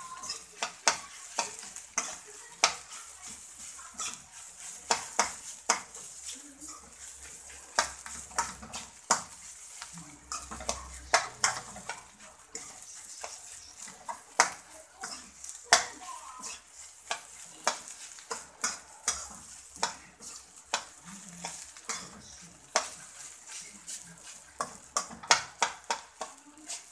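Metal spatula stirring and scraping fried rice in an aluminium pan: irregular clinks and scrapes of metal on the pan, a few a second, over a steady frying sizzle.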